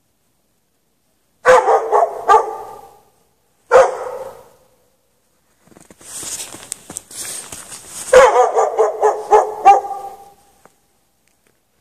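A dog barking in three bursts of quick, repeated barks, each trailing off. It is a dog chained outside in the snow, barking on and on for hours.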